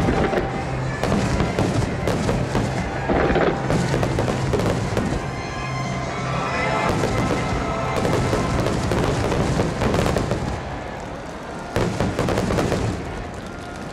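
A dense barrage of 12-inch (shakudama) aerial firework shells bursting in rapid overlapping booms. The barrage eases off around ten seconds in, then one more sharp bang comes near the end. Music plays underneath.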